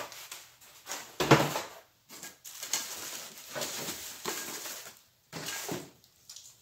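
Cardboard packing and plastic wrap rustling and crinkling as cookware is unpacked, with a sharp thump just after a second in and a few lighter knocks near the end.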